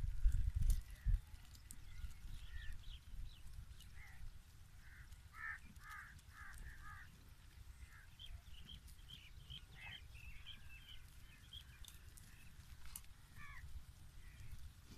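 Birds calling in the background of open farmland: a run of four short calls about midway, then a quick flurry of chirps. Under them is a low rumble that is loudest in the first second.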